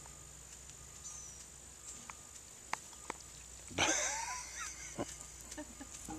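A dog lying on its back makes a short, breathy vocal sound with a wavering pitch, about a second long, a little past the middle. A few soft clicks come before it, and crickets keep up a steady high buzz behind.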